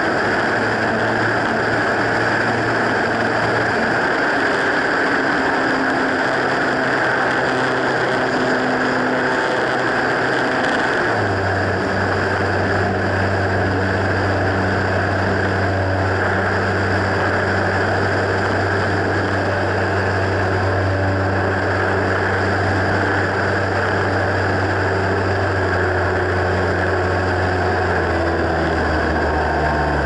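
Onboard sound of an Airfield 1400mm T-28 RC warbird in flight: its electric motor and propeller whine steadily. About a third of the way in the pitch steps to a new, stronger tone, and near the end it falls away as the throttle comes back, all over the rush of air past the airframe.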